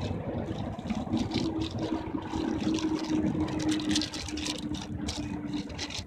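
A steady engine hum over a low rumble, with many short high ticks scattered through it.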